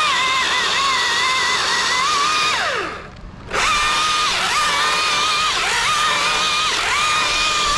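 Chainsaw at full throttle cutting through a large limb, its engine pitch sagging under load and picking back up again and again. About three seconds in the pitch falls away and the sound breaks off for half a second before the saw returns to full speed.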